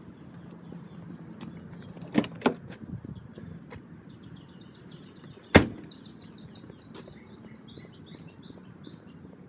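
Birds chirping in a run of short high notes over faint outdoor noise. There are two small knocks about two seconds in, and a single sharp bang, the loudest sound, about five and a half seconds in.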